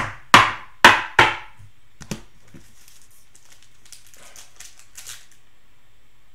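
Four sharp knocks in quick succession, then a lighter one, followed by the crinkling of a Panini Prizm cello pack's wrapper as it is handled and torn open at the top.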